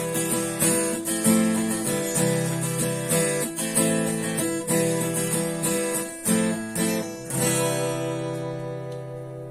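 Acoustic guitar strummed in a steady rhythm, ending about seven seconds in on a final chord that rings out and slowly fades.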